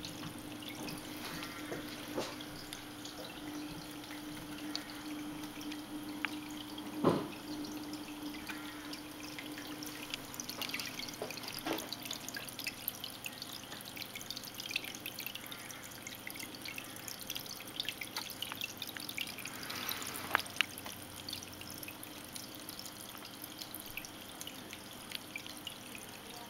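Water dripping and trickling from a drip-line tube down the wet background of a vivarium, as many small irregular drips. A low steady hum fades out about a third of the way through, and a single sharp knock comes about seven seconds in.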